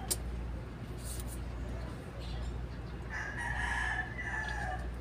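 A long, drawn-out call lasting almost two seconds, starting about three seconds in, over a steady low hum.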